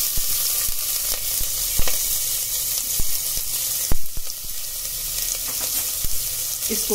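Chopped onion and green chilli sizzling in hot mustard oil with cumin seeds in a stainless steel pressure cooker: a steady frying hiss with scattered crackling pops.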